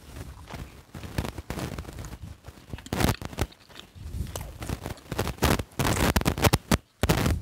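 Close-up chewing and crunching of crispy breaded fried chicken, with crackling as the crust is picked apart by hand; an irregular run of crunches, loudest about three seconds in and again near the end.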